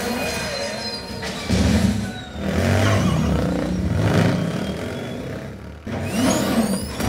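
Movie soundtrack of a car chase played through Polk Signature S55 tower speakers and picked up by a room microphone: engines revving with heavy low rumbles that surge about a second and a half in, and rising whooshes near the end.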